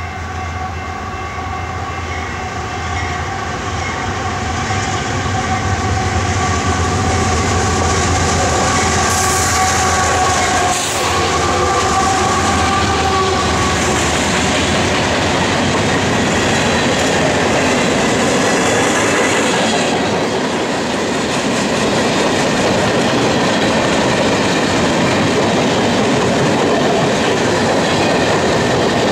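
Canadian Pacific diesel-hauled freight train passing close by: the locomotives come on, growing louder over the first several seconds with a low rumble and steady high tones. Then a long string of boxcars and covered hoppers rolls past with a steady clatter of wheels on rail.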